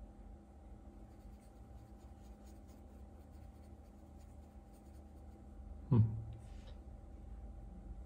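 Paintbrush bristles working and spreading acrylic paint on a wet palette's paper, faint scratchy strokes over a low steady hum. A single short thump about six seconds in.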